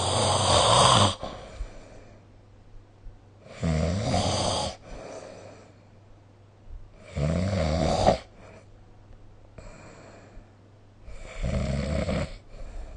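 A sleeping person snoring, one rattly snore about every three and a half to four seconds, each lasting about a second, with quiet breathing gaps between them; four snores in all, the first ending about a second in.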